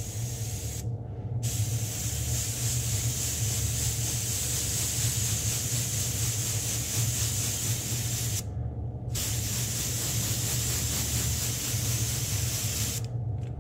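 Airbrush hissing as it sprays paint at 30 psi, in long passes that pause briefly about a second in and again at about eight and a half seconds, then stop near the end with a couple of short spurts. A steady low hum runs underneath.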